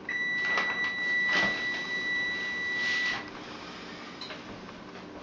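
An electronic beep: one steady high tone held for about three seconds that cuts off suddenly. Stiff antique paper rustles as it is handled and laid down.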